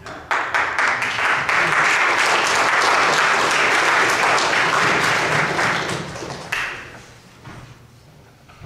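Audience applause, rising quickly just after the start and dying away about six to seven seconds in.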